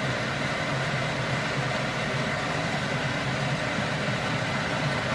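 A large stainless steel pot of water boiling hard on a ceramic hob, with a steady bubbling rumble.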